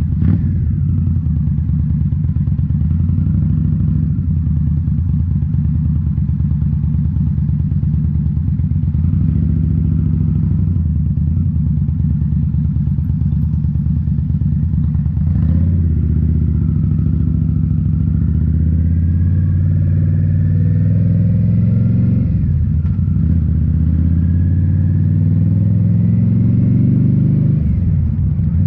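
2018 Indian Scout Bobber's V-twin engine running through Rinehart slip-on mufflers while riding. It holds a fairly steady pace at first, then pulls up through the gears, the revs rising and dropping at an upshift about halfway through, again about three quarters of the way in, and once more near the end.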